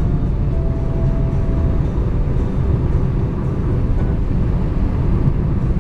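Steady road and engine noise of a car cruising at highway speed, heard from inside the cabin: an even low rumble.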